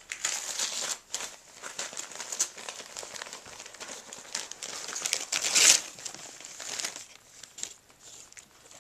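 Small dogs tearing and crumpling wrapping paper, an irregular run of crinkling rustles and rips. The loudest rip comes about five and a half seconds in, and it quietens after about seven seconds.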